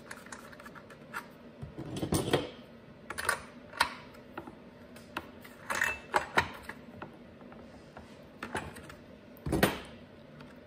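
A metal hand tool clicking and knocking against the plastic top of a NEOTEC NS892 chainsaw as its spark plug is fitted. There are irregular sharp clicks, a second or so apart, with the loudest knocks about two seconds in and near the end.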